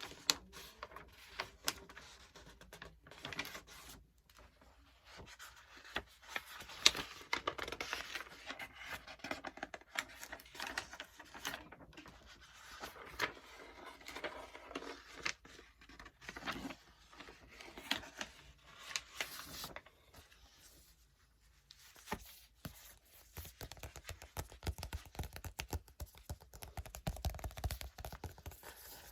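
Paper book pages being turned and flipped, close-miked: irregular crisp rustles and sharp papery crackles, with a short lull a little past two-thirds of the way through.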